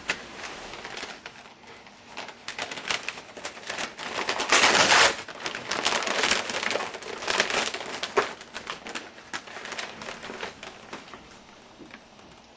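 Gift-wrapping paper being torn open and crumpled: a quick run of crackling rips, with the loudest tearing about five seconds in, tailing off into lighter rustling near the end.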